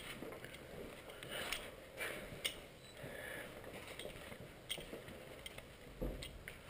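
Faint, irregular scuffs and light crunches of footsteps on a gritty concrete floor, a few soft taps scattered through.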